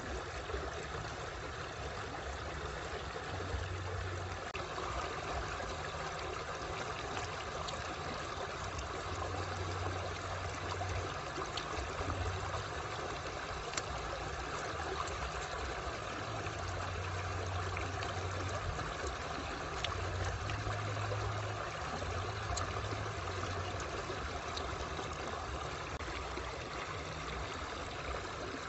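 Shallow stream running over rocks, a steady rushing and trickling, with a low rumble coming and going underneath.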